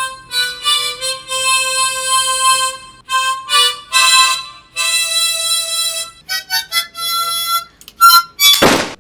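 A melody of held, reedy notes that sound like a harmonica, moving between pitches, with a few short notes near the end. A short, loud rushing burst comes shortly before the end.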